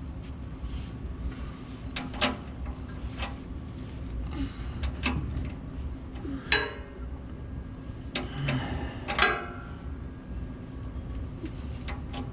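A few scattered metallic clinks and knocks of hand tools being handled under the truck during an oil change, over a steady low hum.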